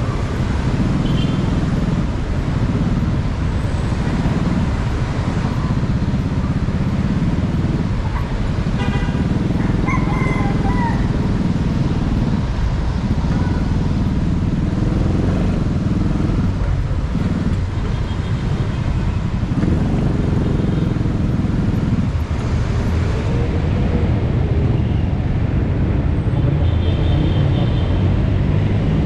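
Motorcycle riding in slow, stop-and-go city traffic, heard from the bike: steady engine and road noise mixed with the surrounding cars. A few brief high-pitched tones come out of the traffic about a third of the way in and again later.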